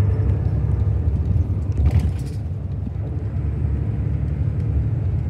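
Steady low rumble of an intercity coach bus, with a brief faint hiss about two seconds in.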